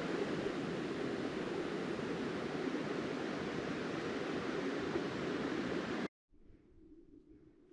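Steady rushing of flowing water, like a mountain creek or cascade, that cuts off suddenly about six seconds in.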